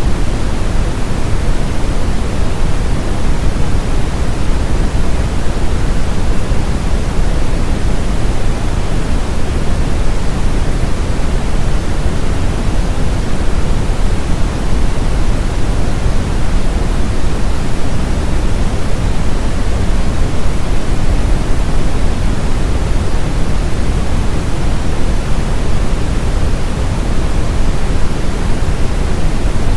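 Brown noise: a steady, deep, unchanging hiss with most of its weight in the low end, used for masking tinnitus.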